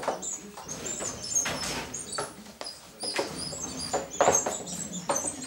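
Barbet puppies playing together, making many short high-pitched squeals and yips, with bursts of scuffling and clatter; louder cries about a second and a half in and again after four seconds.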